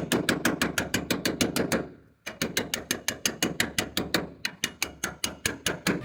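Rapid, even tapping or hammering, about eight sharp strikes a second, with a short break about two seconds in.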